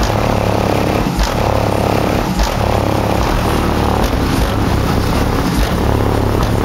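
Four 12-inch subwoofers on a 2,000-watt system, mounted in a car's trunk and heard from outside the closed car, booming deep bass-heavy music with sharper hits every second or so. Body panels buzz and rattle along with the bass.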